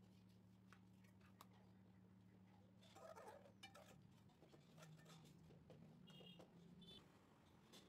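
Near silence over a low steady hum: faint clicks and scrapes of a spoon in a kadhai of simmering milk as cardamom powder is stirred into the kheer, with a few short high squeaks near the end.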